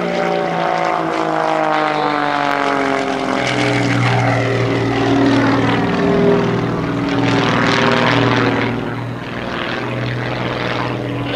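Panzl 330 aerobatic plane's piston engine and propeller at high power, its pitch falling over the first few seconds as it passes low, then a steady drone as it climbs.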